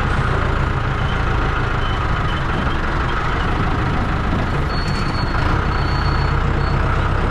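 John Deere 6630 tractor's diesel engine running steadily under way, a loud low drone, with a faint high-pitched tone coming and going in the second half.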